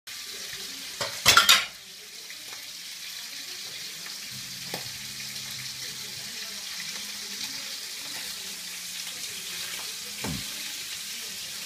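Salmon steaks sizzling steadily in hot oil in a frying pan. A brief loud clatter comes about a second and a half in, and a few light clicks of the spatula against the pan follow later.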